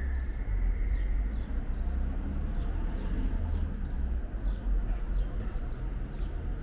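Small birds chirping: short, high, falling chirps repeating irregularly, about twice a second, over a steady low outdoor rumble.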